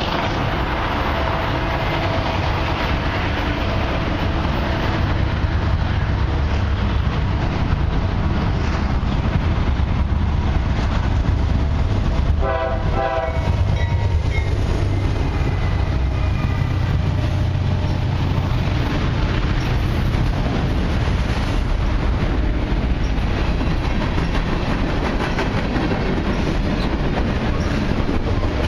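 Diesel-hauled freight train of autoracks and mixed cars rolling past with a steady heavy rumble and wheel-on-rail clatter. A short blast of the locomotive horn sounds about twelve seconds in.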